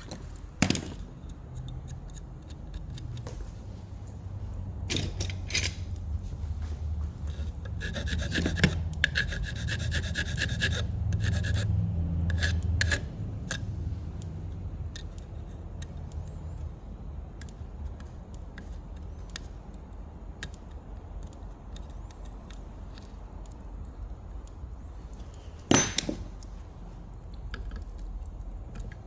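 Rubbing and scraping from hand work on a part, with a denser stretch of rapid scraping strokes in the middle that stops abruptly, and a sharp knock just after the start and another near the end.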